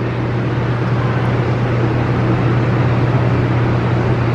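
A steady low machine hum under an even rushing noise, unchanging throughout.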